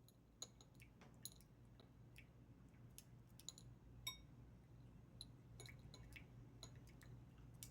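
Teeth clicking while eating: faint, sharp clicks at an uneven pace, a few each second, with the wet sounds of chewing.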